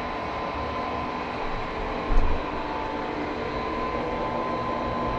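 Wall-mounted LG 36,000 BTU split air conditioner running: a steady rush of air with a faint steady hum. A brief low thump comes about two seconds in.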